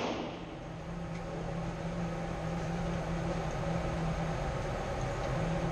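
The echo of a handgun shot dies away in the first half second, then a steady low mechanical hum runs on, typical of an indoor range's ventilation fans.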